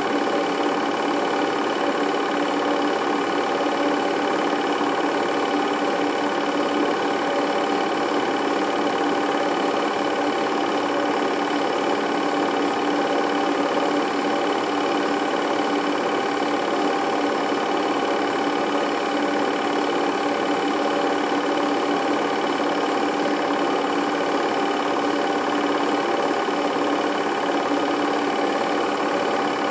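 Film projector running during transfer of a silent home movie: a steady mechanical whir with constant motor tones and no change throughout.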